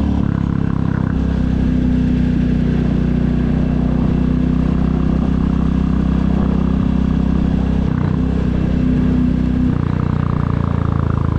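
The 2022 Royal Enfield Classic 350's single-cylinder engine and exhaust running with a steady note. The pitch and level shift slightly about a second in, again around eight seconds, and near the end as the throttle changes.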